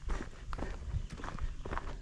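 Footsteps of a hiker walking on a dry, sandy dirt trail: a quick run of steps and scuffs.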